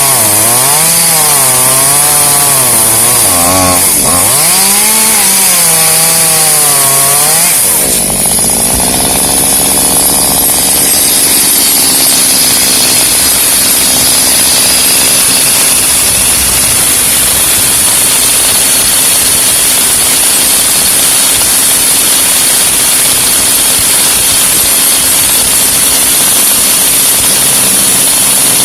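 Chainsaw cutting through pecan wood, its engine pitch wavering up and down about twice a second as it works in the cut. About eight seconds in the cutting stops, and a steady engine carries on at a constant pitch.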